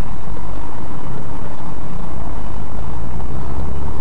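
Loud, steady noise of a moving road vehicle, mostly a deep low rumble with an even hiss above it and no impact.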